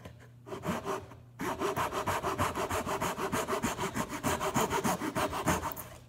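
Hand saw cutting through wood: a few short starting strokes, then quick, even back-and-forth sawing from about a second and a half in, stopping just before the end.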